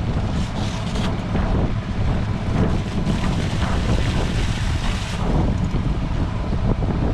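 Wind buffeting the microphone with a steady low rumble, over the noise of a small fishing boat at sea.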